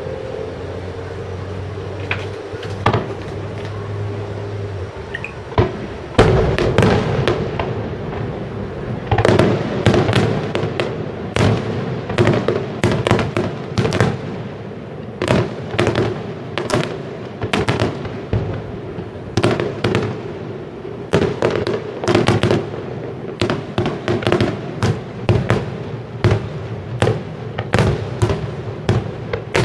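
Aerial firework shells bursting in a long series of sharp bangs, often two or three a second, beginning about six seconds in; before that only steady background noise.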